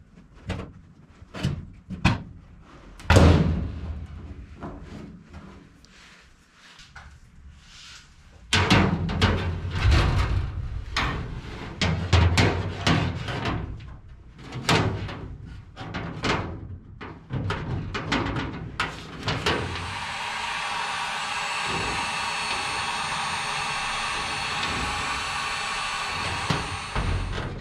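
Knocks, rattles and scrapes of plastic static-line tubing being handled and pushed through holes in aluminium fuselage bulkheads. About two-thirds of the way in, a handheld heat gun starts and runs steadily, then stops just before the end.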